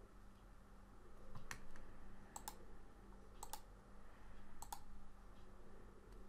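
Computer mouse clicking: one sharp click, then three quick double clicks about a second apart, over a faint steady electrical hum.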